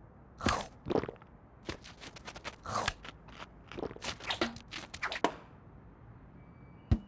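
A string of short, irregular crunching sound effects over about five seconds, then a single sharp click near the end.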